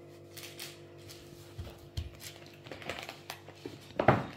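Light taps and clicks from handling dough, baking paper and a metal baking tray, with one louder knock near the end, over soft steady background music.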